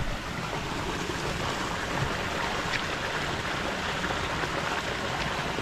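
Wind blowing across the microphone outdoors: a steady rushing hiss with a fluttering low rumble.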